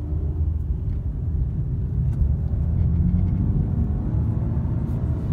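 2015 Dodge Dart's engine and road noise heard from inside the cabin while driving, a steady low rumble. The car is pulling sluggishly with its check engine light on, which the driver puts down to an intake piece being off.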